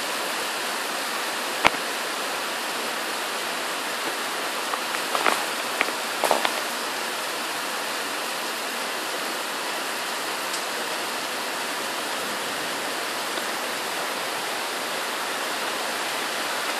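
Heavy tropical-storm rain pouring down, a steady even hiss. A single sharp click comes a little under two seconds in, and a few brief louder sounds rise out of the hiss around five to six seconds in.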